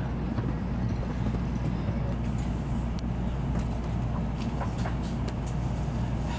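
Steady low rumble inside the passenger cabin of a Shinkansen bullet train moving slowly out of the station, with faint scattered clicks.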